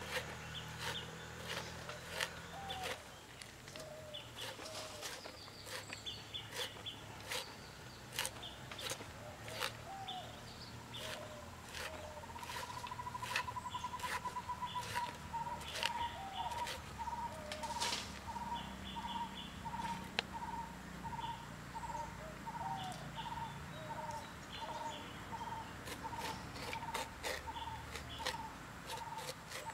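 Birds calling: short chirps in quick groups of three or four, and about halfway through a quick trill that turns into one note repeated evenly, a little more than once a second. Crisp clicks and snaps throughout from a knife cutting and peeling the heart of a banana blossom.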